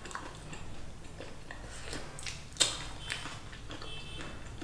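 Eating sounds at a table: soft chewing and scattered small clicks and taps from handling disposable plastic food containers and a spoon, with one sharper click about two and a half seconds in.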